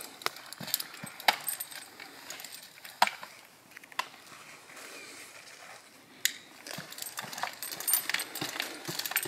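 Irregular metallic clinks and knocks, metal pieces jangling against each other, with a quieter spell of about two seconds around the middle before they pick up again.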